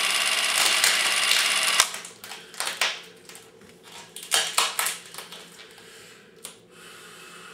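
A steady noise with a faint high tone cuts off abruptly about two seconds in. It is followed by irregular crinkling and crackling of thin plastic sheeting wrapped around a head as hands pull and pinch at it.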